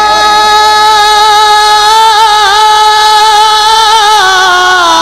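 A male naat reciter singing one long held note into a microphone, unaccompanied. The pitch holds steady, wavers slightly about halfway and again near the end, then drifts a little lower.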